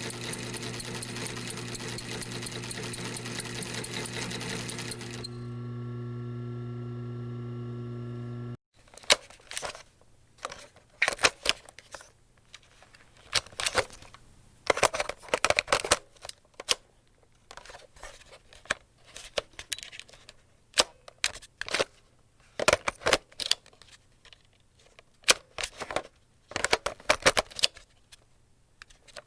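Industrial sewing machine stitching at speed, then its motor humming on alone for a few seconds before cutting off suddenly. After that, a long run of sharp plastic clicks and rattles as a cassette tape is handled and inserted into a cassette player.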